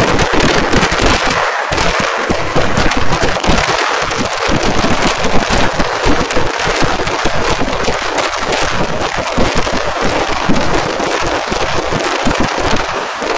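Kerala temple-festival fireworks (vedikettu) going off in a dense, continuous barrage: countless rapid bangs and crackles running together without a break.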